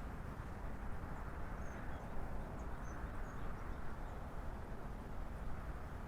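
Steady low hum of distant city traffic, with a few faint, short, high bird chirps about two to three seconds in.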